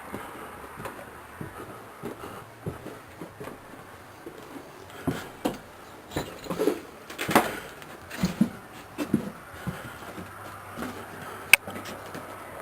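Irregular knocks, bumps and short creaks of someone climbing up carefully through a house, with a single sharp click near the end.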